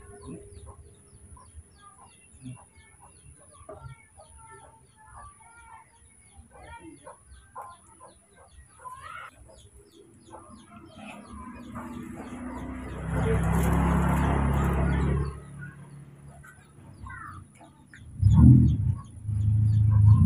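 Many short chirping, clucking animal calls. A louder rushing, rumbling noise rises after the middle and lasts about three seconds, and loud low sounds come in near the end.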